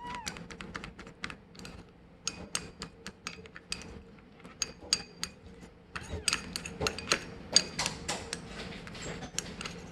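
Kittens eating from a dish: a string of irregular small clicks and light clinks as teeth and tongues hit the bowl, coming faster about six seconds in.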